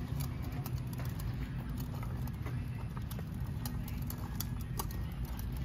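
Small plastic wheels of a toddler's ride-on bike rolling slowly over rough pavement: a steady low rumble with scattered light clicks.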